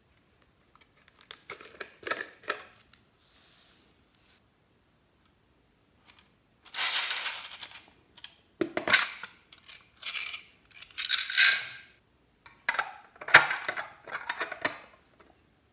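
Hard plastic novelty containers being handled and emptied over a glass baking dish, clattering and rattling as their small contents pour out. The sound comes in a series of separate bursts, the loudest in the second half.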